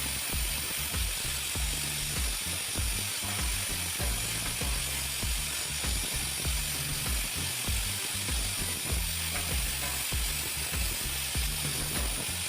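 Background music with a steady bass beat and a repeating bass line, under a steady hiss.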